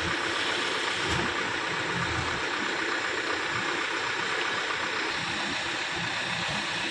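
Heavy construction machine's diesel engine running steadily, with a continuous mechanical hum.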